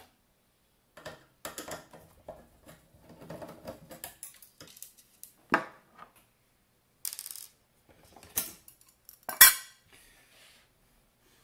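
Metal clinking and rattling as a screwdriver works in the transponder's metal chassis and a cover is lifted out of it. Scattered clicks and scrapes, with a few sharp clanks, the loudest near the end.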